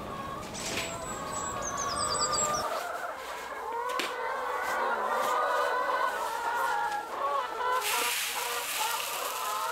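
A flock of hens clucking, many calls overlapping. A rustling hiss joins in near the end.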